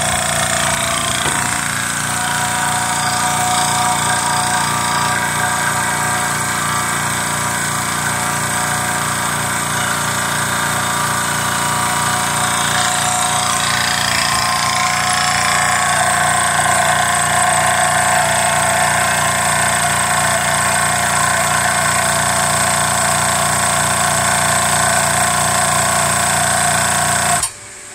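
Hill EC-3000 high-pressure air compressor running under load with a steady pumping rhythm as it fills a carbon fibre air tank toward 250 bar. Near the end it cuts off suddenly: the compressor pausing itself to cool down once hot, short of its target pressure.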